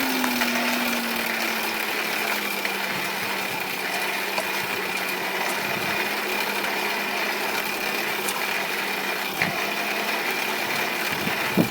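Small electric blower motor running steadily with a rushing of air, a constant hum and a faint higher whine, as when a blower feeds air to a forge fire. The hum settles slightly lower in the first second, and there are a couple of small knocks near the end.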